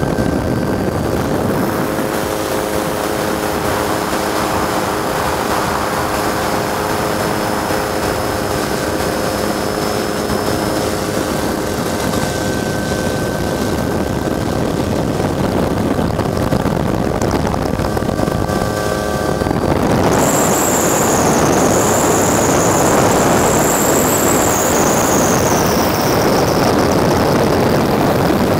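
Helicopter noise as heard aboard the aerial camera helicopter: a steady rumble and rush with faint steady tones. About twenty seconds in, a loud high whine joins it and sinks a little near the end.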